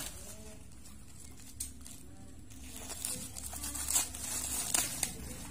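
Black plastic mailer bag rustling and crinkling in the hands as it is cut open with scissors. It is quiet at first; the crinkling picks up about halfway through, with a few sharp snaps near the end.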